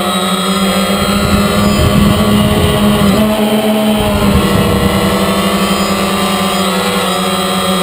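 DJI Phantom quadcopter's motors and propellers whining steadily, recorded close up by the camera mounted on the drone. The pitch shifts a little about three seconds in and again near the end as the drone manoeuvres.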